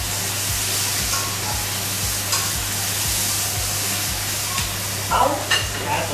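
Chicken wings sizzling as they are stir-fried in a wok with a steady frying hiss, the utensils scraping and tapping against the pan. A few louder clatters come near the end.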